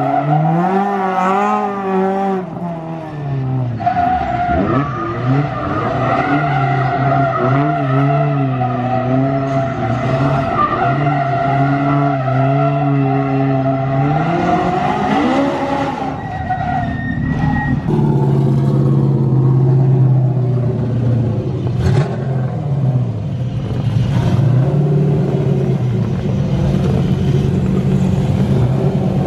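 Drift car's engine revving up and down over and over as it slides around the course, with tyres screeching.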